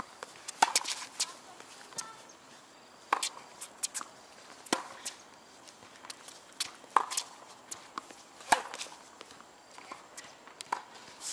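Tennis rally on a hard court: the ball is struck by rackets and bounces on the court, a series of sharp pops about every second, the loudest about a second in and about eight and a half seconds in.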